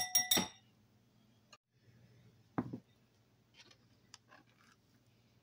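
A utensil clinks against a glass bowl several times at the start, leaving a short ringing. About two and a half seconds in there is one dull knock, then a few faint handling taps, over a low steady hum.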